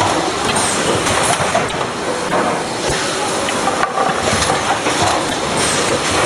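Automatic chocolate snack pack packing machine running, a steady mechanical clatter with faint clicks scattered through it.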